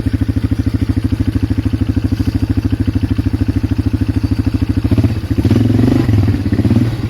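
Polaris Magnum 425 ATV's single-cylinder four-stroke engine idling with a fast, even putter. About five seconds in it is briefly revved, its note rising and roughening, then settles back to idle.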